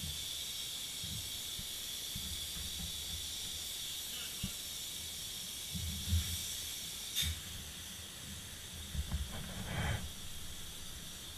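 Open-cell spray foam gun hissing steadily as foam is sprayed, easing off about seven seconds in. Scattered low thumps and knocks from movement on the attic floor.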